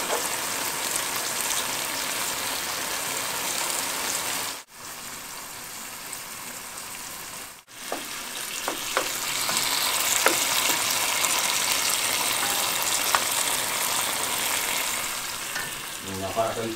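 Halved cherry tomatoes and garlic sizzling in oil in a frying pan over high heat while their juices cook down. In the second half a utensil clicks against the pan as they are stirred, and a voice comes in briefly near the end.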